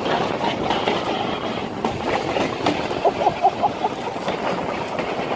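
Wicker basket toboggan sliding fast on its wooden runners over asphalt: a steady rough scraping noise with small knocks, and a few short squeaks about three seconds in.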